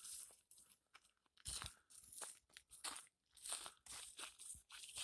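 Faint, irregular crunching and rustling of dry leaves and brush, in short scattered crackles.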